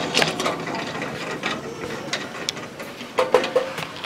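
Scattered metal clicks, rattles and small clanks from a 5 HP spice grinder's stainless-steel grinding chamber as it is handled and opened by hand; the grinder is not running.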